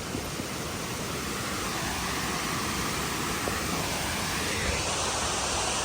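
Steady rush of a waterfall, an even noise that grows slightly louder.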